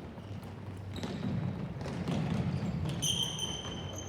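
A ball bouncing and thudding on a hard indoor floor under a low murmur of voices. About three seconds in, a high, steady whistle-like tone sounds for about a second.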